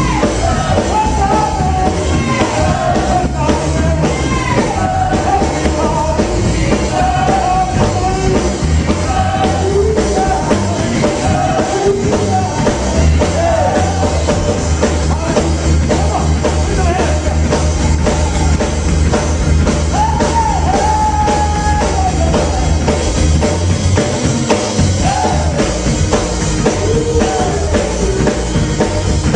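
Live church praise team singing over a full band with drums.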